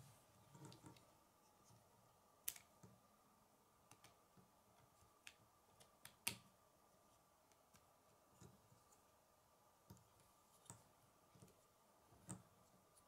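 Faint, scattered clicks and taps of plastic K'nex pieces as a built model is handled and adjusted by hand, with the two sharpest clicks about two and a half and six seconds in.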